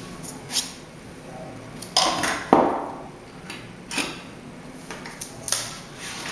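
Several sharp plastic clicks and knocks from a TTP-2410M Pro label printer as a label roll is fitted onto its supply spindle and the label roll guard is flipped, with the loudest knock about two and a half seconds in, over light handling noise.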